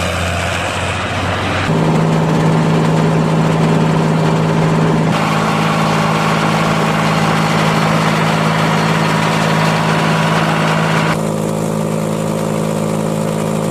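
Fox Max II forage harvester running at a steady speed, its engine and chain-driven chopping gear making a constant hum. The first couple of seconds are a Ford tractor with a forage wagon driving past, before the sound changes abruptly.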